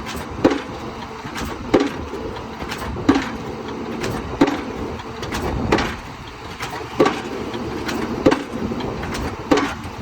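Excavator-mounted Fambo hydraulic hammer striking the top of a spun concrete pile, driving it down with heavy blows about every 1.3 seconds, eight in all, each with a short ringing. The excavator's engine runs steadily underneath.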